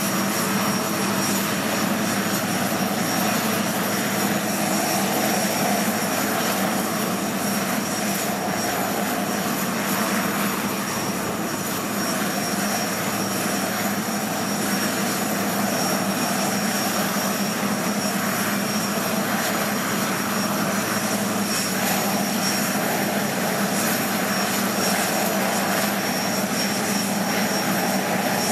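Puma HC.1 helicopter's twin turboshaft engines and main rotor running steadily on the ground before take-off. A constant high turbine whine sits over the rotor and engine noise.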